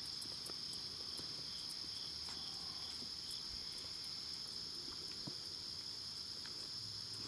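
Steady high-pitched chorus of insects, with faint scattered high ticks.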